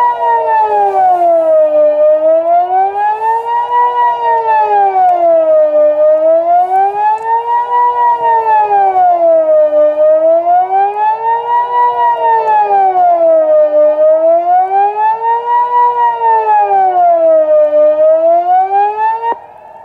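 Civil defence siren sounding the Swiss general alarm as a test: a loud wail rising and falling in pitch about once every four seconds. It cuts off abruptly near the end.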